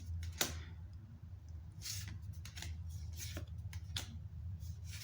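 Pokémon trading cards being slid and flicked one past another in the hand, a series of soft, short paper swishes and clicks spaced about a second or less apart. A low steady hum runs underneath.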